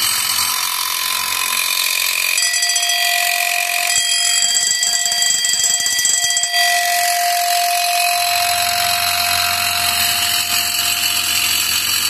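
The motor unit of a fire alarm bell, taken off its gong, running: the motor drives the striker in a fast, steady buzzing rattle. From about two seconds in until about eight seconds in, a clear ringing tone sounds over the rattle.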